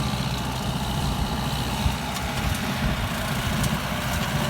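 Kubota M9540 tractor's four-cylinder diesel engine running steadily.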